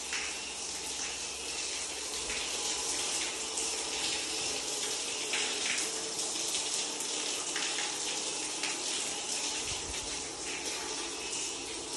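Water from a frozen fire-sprinkler pipe that has burst, pouring steadily down through the ceiling and splashing onto the wet floor and mats.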